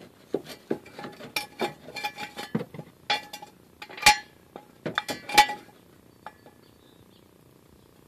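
Steel ratchet-type jack stand being adjusted by hand: its toothed column is pulled up and its locking handle rattled, giving a run of irregular metallic clicks and clinks with two louder clanks about four and five seconds in. It then goes quiet for the last couple of seconds.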